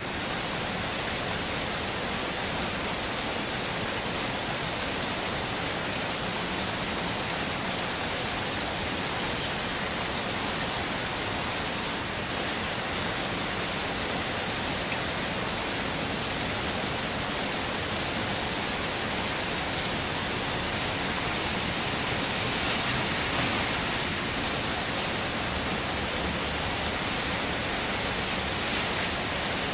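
Heavy rain falling steadily, a dense even hiss with no let-up. The high end of the hiss dips briefly twice, about twelve and twenty-four seconds in.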